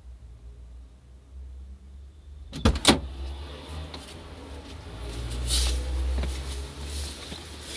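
Opel Corsa A's front door being unlatched and opened: two sharp latch clicks close together near the middle, then the noise of the open door with scattered knocks and a low rumble.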